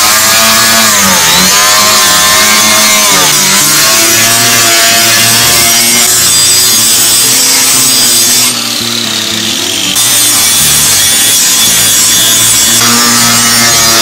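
Angle grinder with an abrasive disc grinding a steel knife blade made from car leaf spring, a loud continuous grinding whine. The whine dips in pitch about a second in and again about three seconds in. The noise is briefly quieter for about a second and a half a little past the middle.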